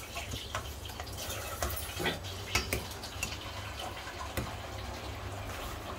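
Steel ladle stirring just-boiled milk in a stainless steel kadhai: liquid sloshing, with scattered light clinks and scrapes of the ladle against the pan over a steady low hum.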